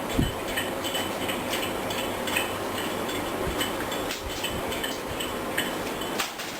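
Metallic clicks and clinks over a steady background rush, with one low thump right at the start: the mechanism of a foot-pedal bag sealer being worked.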